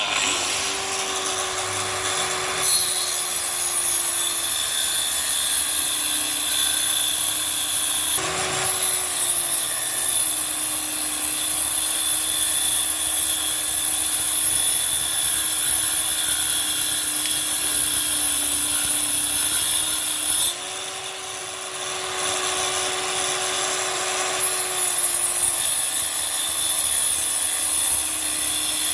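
Electric power tool working wood: a motor whine that sags in pitch as the tool bites in and picks up again as the load eases. Continuous scraping, grinding noise comes from the wood. The loudness shifts at a few points as the tool is pressed in or lifted.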